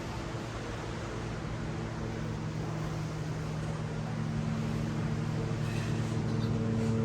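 A steady engine hum, slowly growing louder, over the hiss of surf.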